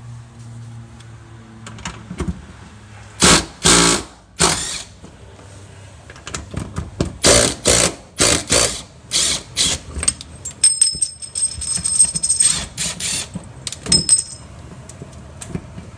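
Cordless impact wrench hammering in a dozen or more short bursts, loosening the last transmission bolts on a 1983 Mazda RX-7. A thin high whine runs for about two seconds past the middle.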